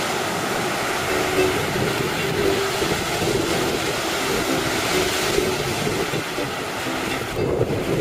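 A steady rush of breaking sea surf and wind on the microphone, with faint ukulele notes showing through now and then.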